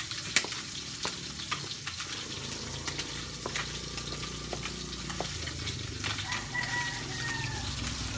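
Light clicks and taps of a spoon and fingers against a bowl and plates while eating. About six seconds in, a rooster crows once for about a second, its call falling slightly at the end.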